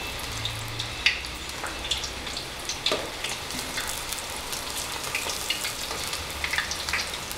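Thin raw potato slices sizzling in hot oil in a wide aluminium pan as handfuls are dropped in. A steady hiss runs throughout, with scattered sharp crackles and pops.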